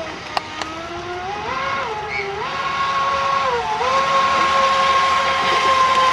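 Twin 5.5T Atomic brushless outboard motors of a radio-controlled mono hull boat whining at speed, the pitch climbing and dipping with the throttle, then held high and steady over the second half. Two short clicks about half a second in.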